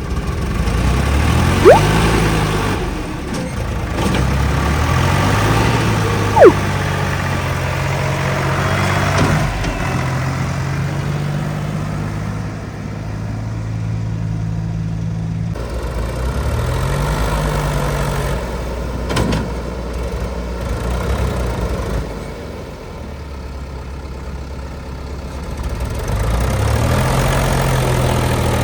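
JCB 3DX backhoe loader's diesel engine running under load, its pitch rising and falling again and again as the operator works the hydraulics to dig and load. Two brief, sharp loud sounds stand out, one about two seconds in and another about six seconds in.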